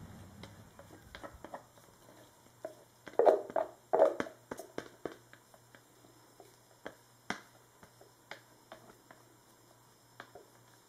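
Plastic measuring jugs and utensils being handled on a table: scattered clicks and knocks, with a louder cluster of thuds about three to four seconds in, then fewer, lighter ticks.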